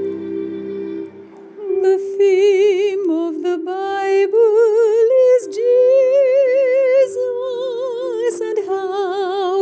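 Slow gospel hymn: a held chord dips away about a second in, then a woman sings a drawn-out line with wide vibrato over sustained harmony.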